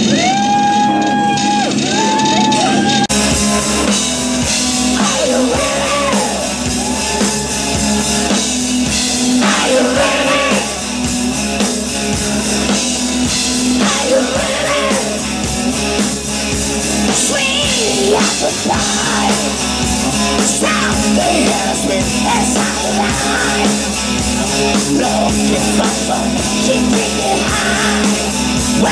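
Hard rock song with a singing voice, drum kit and electric guitar. It opens with a held, bending note for about three seconds, then the full band comes in.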